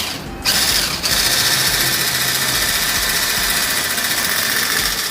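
Electric mixer running steadily, its beaters whipping chilled cream in a bowl; the sound drops briefly at the very start, then runs on evenly.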